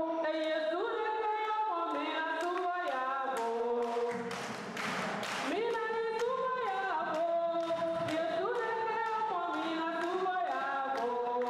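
A woman singing a church song unaccompanied into a microphone, amplified through the hall's sound system. Hand claps keep time about twice a second.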